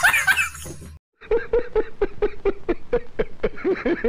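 A man laughing hard in quick repeated 'ha's, fading out within the first second; after a brief silent break, another man laughs in a rapid, evenly paced run.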